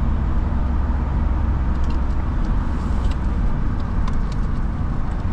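Steady road and engine rumble heard from inside a car's cabin while it drives on a highway, deep and even, with a few faint ticks in the middle.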